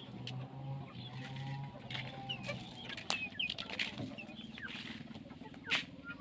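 Chickens clucking, with short high chirps in the middle. Two sharp knocks of plastic toy vehicles being handled in a plastic basket, one about three seconds in and a louder one near the end, and a low hum that stops about two and a half seconds in.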